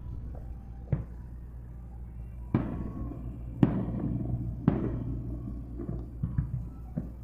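Fireworks shells bursting in the sky: a series of sharp booms with echoing tails, the loudest three close together in the middle, then a few lighter pops near the end.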